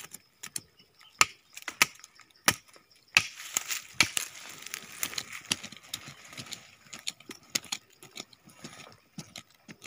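A knife chopping and prying into soil and yellow tree roots: a string of sharp knocks, with gritty scraping and crumbling earth between the strokes.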